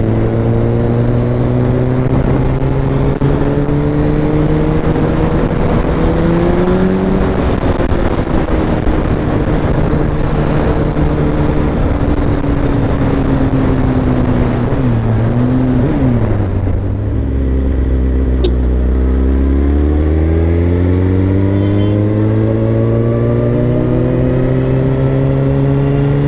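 Suzuki GSX-R 1000 K9 inline-four with an Akrapovic exhaust, ridden in traffic: the engine note climbs steadily through the gears, falls away to a low beat as the bike slows about halfway through, then climbs again. Wind rushes over the microphone at speed in the middle.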